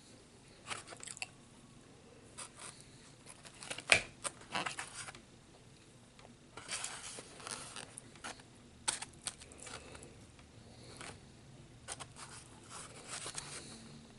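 Eating sounds from a tamale dinner: scattered clicks, scrapes and rustles of cutlery and food being handled, with one sharp knock about four seconds in.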